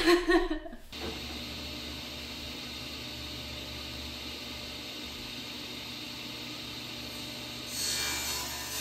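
Cabinet table saw running steadily at free spin, an even whirring noise over a low hum. Near the end a louder, brighter sound joins it.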